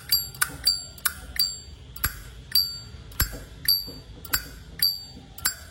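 Zippo lighter's hinged lid flicked open and snapped shut over and over, about two to three clicks a second, the opening clicks ringing with a short bright metallic chime: the lighter's 'âm', the click-and-ring that collectors judge it by.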